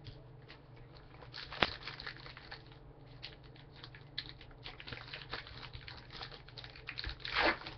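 Foil wrapper of a trading-card pack crinkling and crackling as it is handled, with a sharp tap about a second and a half in and a louder burst of crinkling near the end.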